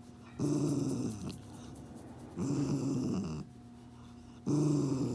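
Dog making a low rumbling sound with each breath, three times about two seconds apart.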